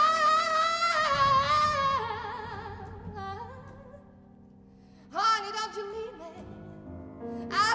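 Soprano singing with wide vibrato in a contemporary chamber piece, over a low held instrumental note. A long high note steps down to a lower one about two seconds in and fades away, then a new phrase comes in about five seconds in, with a loud high entry near the end.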